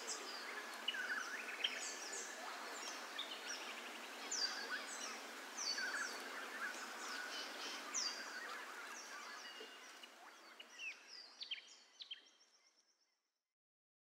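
Several wild birds calling: a chorus of short, high chirps and quick downward-sweeping calls repeating over a faint background hiss, fading out over the last few seconds.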